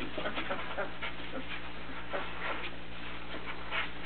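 A litter of newborn chocolate Labrador puppies nursing, with scattered short squeaks and suckling noises coming at irregular moments over a steady low hum.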